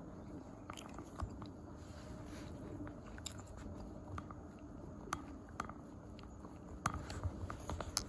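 Scattered small clicks and rubs over a faint steady background hum: handling noise from a smartphone with a clip-on telephoto lens being held and moved. The clicks come more often near the end.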